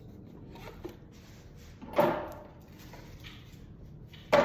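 Two sharp knocks about two seconds apart, each dying away over about half a second, with a few faint clicks before them.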